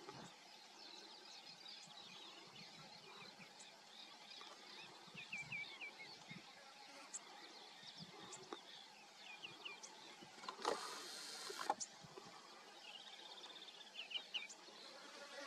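Faint background with small birds chirping in short, quick series several times. About two-thirds of the way through comes a brief noisy rush lasting about a second.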